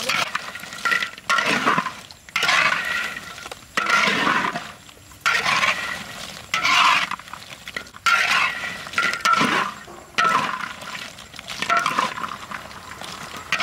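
Metal spatula scraping across a wok and tossing a heap of crisp fried potato rolls, which rattle and clatter at each stroke, about once every second or so, with a faint metallic ring from the wok.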